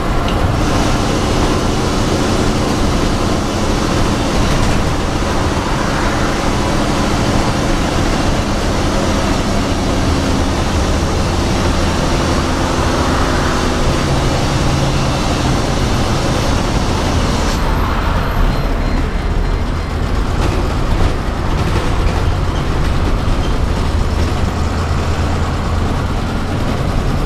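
Bus engine drone and road rush heard from the driver's cab while driving: a steady low engine hum under tyre and wind noise. The high hiss eases about two-thirds of the way through, and the engine note carries on.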